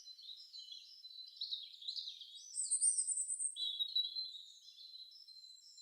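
Small birds chirping and twittering in high, thin repeated calls, with nothing lower in pitch audible.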